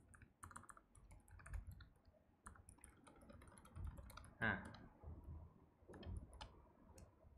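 Faint typing on a computer keyboard: irregular, quick key clicks as code is entered. A brief voiced sound from the typist about halfway through.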